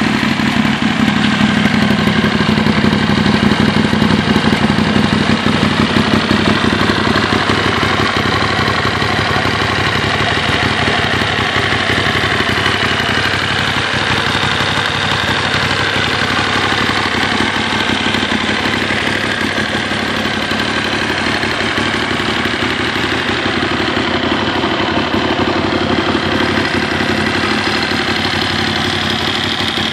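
Moto Morini Corsaro Veloce 1200's 1187 cc V-twin engine idling steadily, a little louder in the first few seconds.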